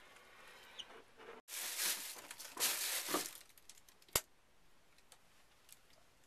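Two short bursts of rustling, scraping noise, then a single sharp click about four seconds in.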